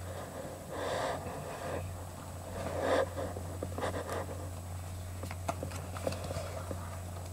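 Two soft breaths, about one and three seconds in, then scattered light clicks and scrapes of Pokémon trading cards being handled out of a freshly opened booster pack, over a steady low electrical hum.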